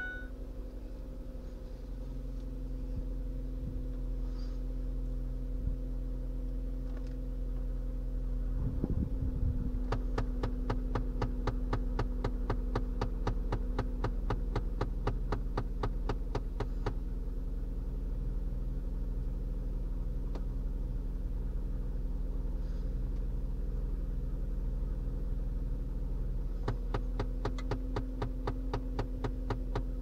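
Faulty HVAC recirculation door actuator popping rapidly and evenly, several pops a second, for several seconds after a thump about a third of the way in, then again briefly near the end. The actuator is failing to reach its commanded position. A steady hum runs underneath.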